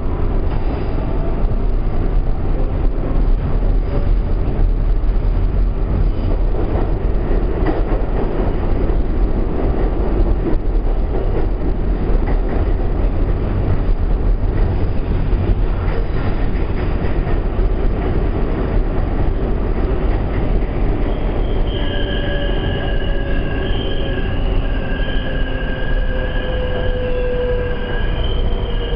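R142A subway car running through the tunnel with a steady heavy rumble and clatter of wheels on rail. From about two-thirds of the way in, high wheel squeals and a slowly falling whine join the rumble as the train slows for the next station.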